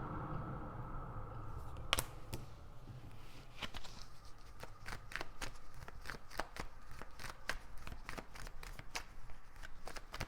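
Tarot cards being shuffled by hand: one sharp snap of the cards about two seconds in, then a fast, continuous run of card flicks from about three and a half seconds on.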